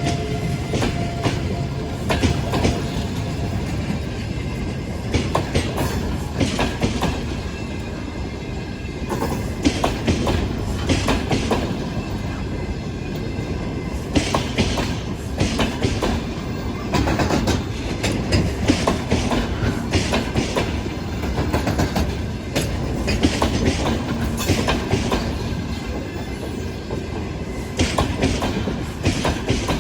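Double-deck passenger train rolling past at speed, its wheels clacking over the rail joints in an uneven run of knocks over a steady rumble. A faint steady whine is heard in the first few seconds and fades.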